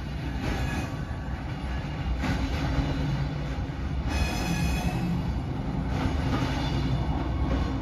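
Stadler GTW diesel light-rail train pulling away around a tight curve: a steady low diesel engine drone and wheels running on the rails, with a brief high wheel squeal on the curve about four seconds in.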